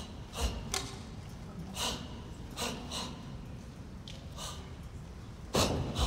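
Martial artist performing a Tang Soo Do form: a series of short, sharp hissing exhalations, about seven in the first five seconds, one with each technique. A heavier thump near the end as a foot lands in a stance on the mat.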